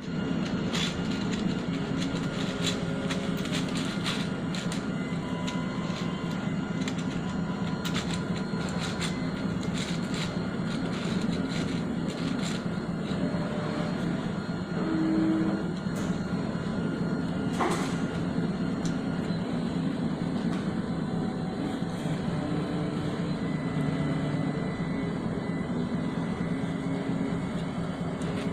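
MINGDA 3D printer printing: its stepper motors sing in short tones that change pitch from move to move over a steady fan hum, with scattered clicks.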